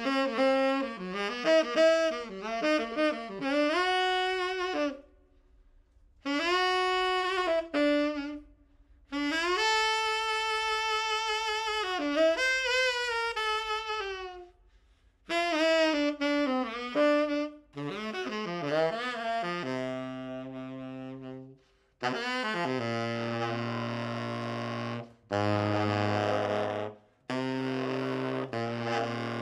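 Tenor saxophone playing unaccompanied jazz, in phrases broken by short pauses: quick runs, a long held note, and lower notes in its bottom register in the second half.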